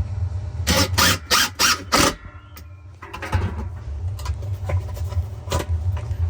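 Repair work on a Whirlpool washing machine: five quick, sharp knocks about a second in, then lighter clattering and clicks, over a steady low hum.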